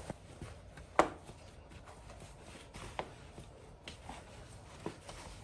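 Chin chin dough being kneaded by hand in a bowl: a few sharp knocks about every two seconds, the loudest about a second in, with soft handling noise between them.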